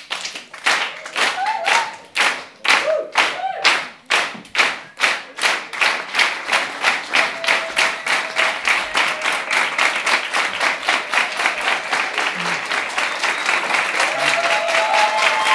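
Audience clapping along in time, about two and a half claps a second, the rhythm loosening into steadier applause near the end.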